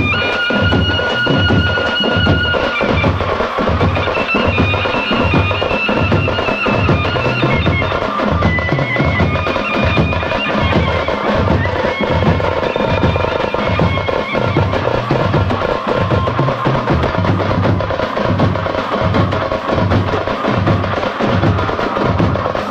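Traditional festival music: a steady beat on tamte frame drums under a shehnai playing a wavering melody.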